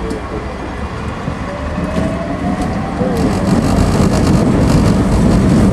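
Hong Kong double-deck tram heard on board while running along its street track: a steady rumble that grows louder about three seconds in, with fast rattling and clicking from then on. About a second in, a faint whine rises in pitch.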